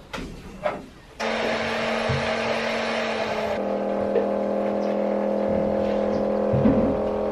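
Electric vacuum pump of a goat milking machine switching on about a second in and running with a steady hum and hiss. A couple of seconds later its note shifts lower and gains more overtones while the teat cups are put on the goat.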